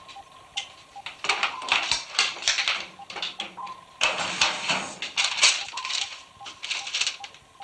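Submarine control-room computer sound effect: bursts of rapid clattering clicks and hiss, over a faint steady tone and a regular soft beep.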